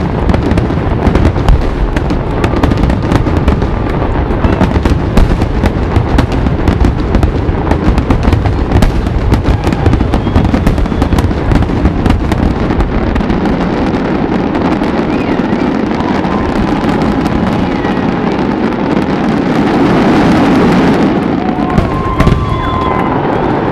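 Rapid barrage of fireworks going off, many sharp cracks and bangs a second, thinning out about halfway through. A swell of crowd noise builds toward the end, with a couple of last bangs.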